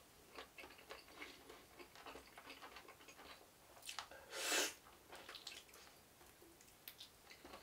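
Faint chewing while eating, with many small clicks of mouth and chopsticks, and one short, louder breathy rush about four seconds in.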